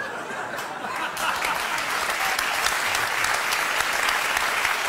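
Audience applauding, swelling over the first second into steady applause.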